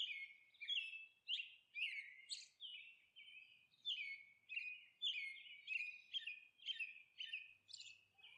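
Small birds chirping: a string of short, quick calls, roughly two a second, with a brief gap about three seconds in.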